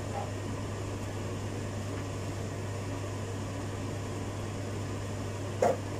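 A steady low hum with even background noise, like a running appliance or fan, with one short click near the end.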